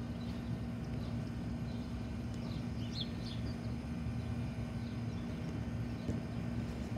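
Steady low hum with birds chirping a few times around the middle, and a soft thump about six seconds in as she comes down on the folding gym mat.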